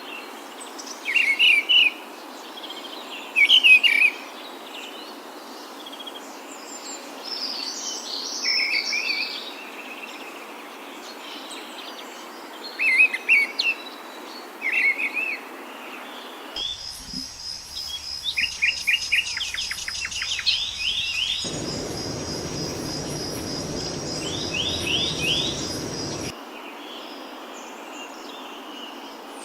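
Wild songbirds chirping and singing in short repeated phrases. About halfway through, the background switches abruptly to a steady high trill under quick runs of sweeping chirps, and a rushing noise comes in for a few seconds before switching back.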